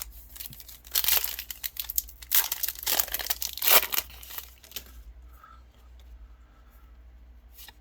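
A Yu-Gi-Oh booster pack's foil wrapper being torn open and crinkled, in loud quick rips between about one and four seconds in, then quieter handling of the pack.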